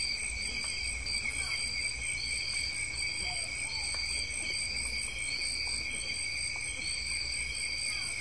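Insects calling in chorus: a steady high-pitched trill, with a higher chirp repeating about once a second over it and a low rumble underneath.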